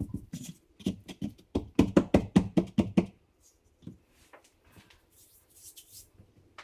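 A quick run of knocks on tile, about a dozen, fastest at around four a second, as natural stone mosaic tile is tapped into place on the wall. Faint scraping and handling follow.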